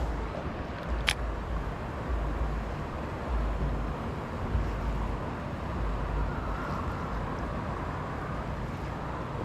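Wind rumbling on the microphone in uneven gusts over a steady outdoor hiss, with one sharp click about a second in.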